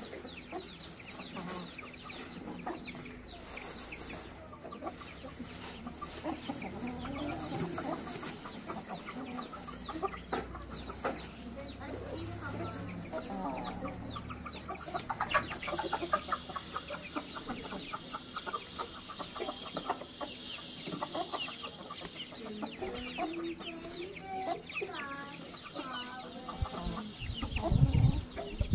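Aseel chickens clucking, with the crinkle of a plastic bag of mustard seed being handled and shaken. A loud low thump comes near the end.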